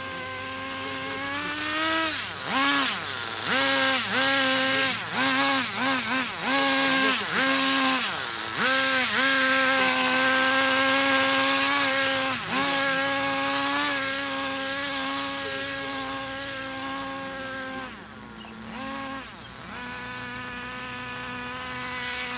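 Small combustion engine of a radio-controlled car revving in a string of quick throttle blips, then held at high revs for several seconds before easing back to a lower steady speed near the end.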